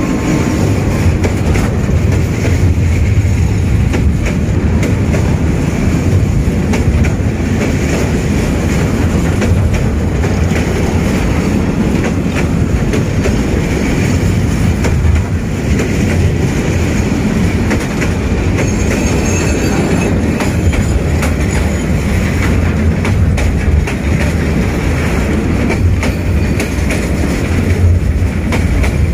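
A freight train's goods wagons rolling past at close range: a steady, loud rumble of steel wheels on rail, with the wheels clacking over the rail joints.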